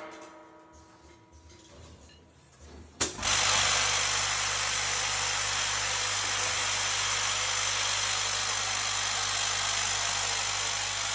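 Bolt packaging machine's motor: quiet for about the first three seconds, then a sharp click and the machine starts up, running with a steady, even whirr and low hum.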